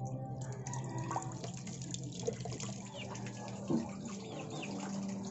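Tap water running in a thin stream over a milkfish steak held in the hands and trickling into a metal basin below, as the blood is rinsed out of the fish.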